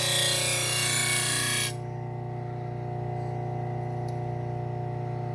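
Knife blade rubbing against the spinning leather wheel of a low-speed sander, a loud rushing hiss that cuts off suddenly about a second and a half in. The sander's motor keeps running with a steady hum.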